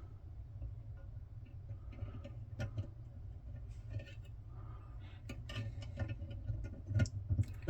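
Irregular small clicks and light ticks of a pin being set into a Paclock padlock cylinder with small tools, coming more often in the second half, over a low steady hum.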